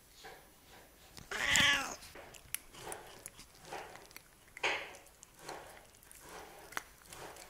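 A Siamese cat gives one long meow about a second and a half in, the loudest sound here. After it come softer short smacks and clicks as the cats lick and eat wet food off a spoon.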